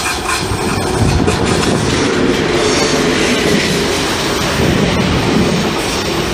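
ICE train passing close by, its wheels rumbling and clattering over the rails. It gets louder about a second in as the carriages draw level.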